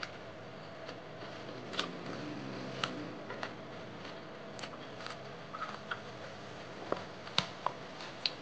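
Eating sounds: sipping fish-soup broth from a spoon and chewing, with scattered sharp clicks of a metal spoon and fork against a plate, the strongest few near the end, over a steady faint hum.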